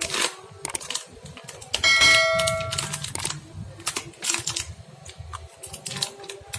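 Plastic spoon clicking and scraping against a clear plastic food container as food is scooped. About two seconds in, a bell-like notification ding rings out and fades over about a second, the sound effect of an on-screen subscribe-button animation.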